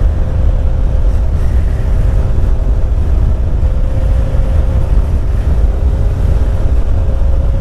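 Motorcycle ride heard on board: heavy wind rumble on the microphone over a BMW S1000 XR's inline-four engine running at a steady cruise, its note holding even.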